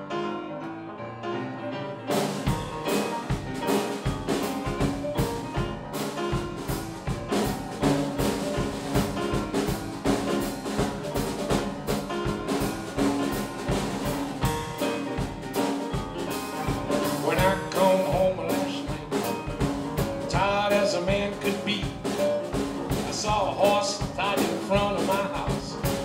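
Solo upright piano in a rolling New Orleans rhythm-and-blues style. It starts softly, and the full piano comes in about two seconds in. A man's singing voice joins over the piano in the last several seconds.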